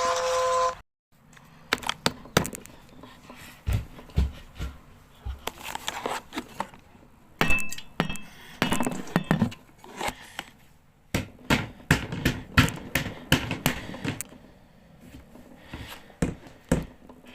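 A steady emergency alert tone at several pitches cuts off suddenly about a second in. Then come irregular clicks and knocks, with a brief faint high beep about halfway.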